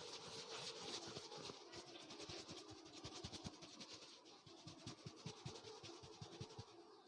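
Faint, close-up scratchy rubbing from a barber working on a client's head, with many rapid, irregular soft taps underneath, about five a second.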